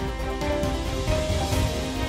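News programme theme music: held notes over a steady low pulse, with a bright hit about a second and a half in.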